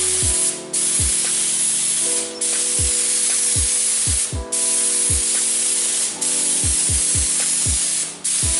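Compressed-air gravity-feed spray gun hissing as it sprays automotive paint, in long passes broken by brief trigger releases about four times.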